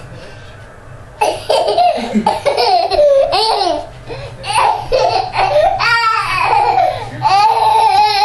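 A toddler laughing hysterically in high-pitched, squealing bursts that start about a second in.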